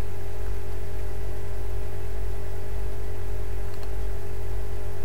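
Steady low hum with a light hiss, and a couple of faint clicks near the end.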